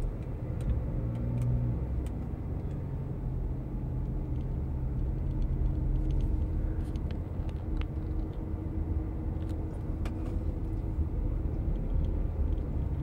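Inside the cabin of a moving car: a steady low rumble of road and engine noise.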